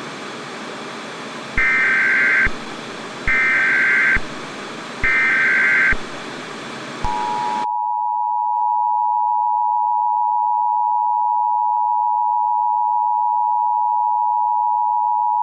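Emergency Alert System broadcast tones over a hiss of TV static: three short, harsh data bursts of the SAME header, evenly spaced, then the two-tone EAS attention signal comes in about seven seconds in and holds steady. The static cuts off shortly after the attention signal starts.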